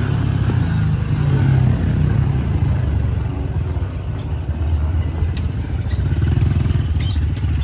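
Small dirt bike engines running at low throttle with a steady low pulsing as the bikes roll down a concrete waterslide channel. A few light clicks near the end.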